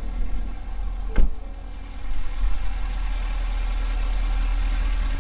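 Engine idling steadily with a low rumble, with one sharp knock about a second in.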